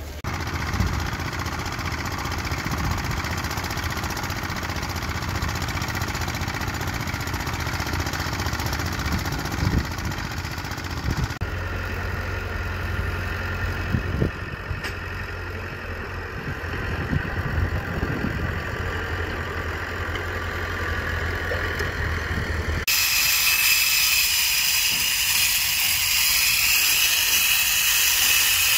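A small crawler bulldozer's diesel engine running steadily. About 23 seconds in, it cuts abruptly to the loud, steady high whine of a hand-held grinder on a concrete wall.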